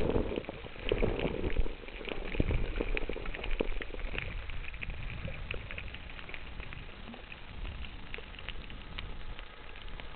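Underwater sound over a coral reef: a dense, steady crackle of many small clicks over a low water rumble, the rumble louder for the first second or two and then easing off.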